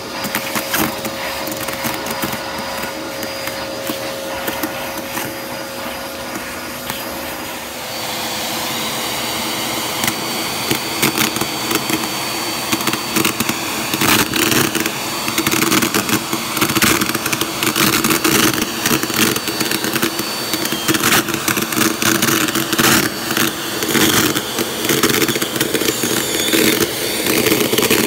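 Vacuum cleaner running steadily with its motor whine, sucking up shredded tissue paper from carpet. About eight seconds in, the nozzle meets the pile: the sound gets louder, the motor's pitch drops slightly, and the paper crackles and rustles continuously as it is pulled in.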